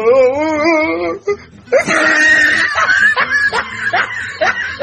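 Laughter: a high, wavering laugh for about the first second, then, after a short pause, a longer run of laughing.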